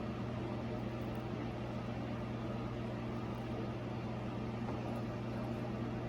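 Steady low background hum of running equipment, even in level with no breaks.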